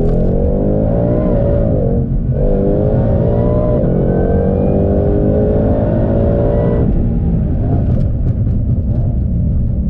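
Supercharged V8 of a Ford Mustang Shelby GT500 accelerating under load. The revs climb, dip briefly at a gear change about two seconds in, climb again, and fall away about seven seconds in. A higher supercharger whine rises along with the engine note.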